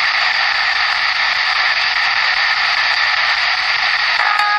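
Steady, loud static hiss, like an untuned radio, with no change in level. A short voice sound comes in near the end.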